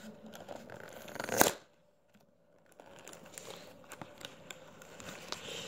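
Adhesive tape and a cardboard crayon box handled by hand: crinkling, rustling and small clicks as tape is pulled, torn and pressed down. The loudest sound is a short rip about a second and a half in. It is followed by a second or so of near silence, and then the handling starts again.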